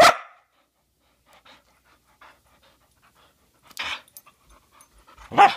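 A small white dog panting close to the microphone, with a short bark as it begins, another about four seconds in and a loud one near the end.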